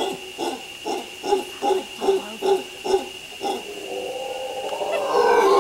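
Mantled howler monkey calling: a run of deep, rhythmic grunts, a little over two a second, that swells from about four seconds in into a continuous, louder roar.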